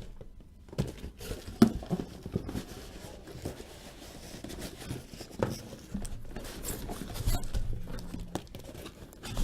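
Cardboard being handled: rustling, scraping and tearing of a card case and its inner cartons, with a few sharp knocks.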